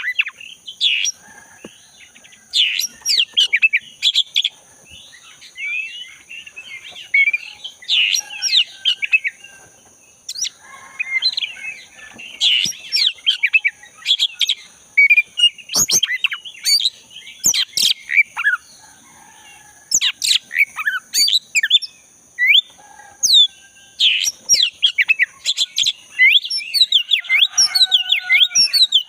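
Oriental magpie-robin of the black-breasted form singing vigorously: rapid, varied whistles and chirps in bursts with brief pauses. A steady high-pitched whine runs beneath them.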